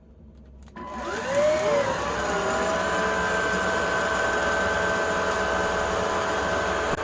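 Shunzao Z11 cordless stick vacuum cleaner switched on with a click about a second in. Its motor whine rises quickly, overshoots briefly and settles into a steady high whine with a rush of airflow.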